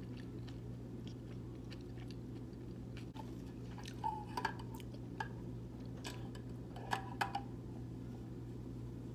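A person chewing a big mouthful of pizza, with scattered wet mouth clicks and smacks, over a steady low hum.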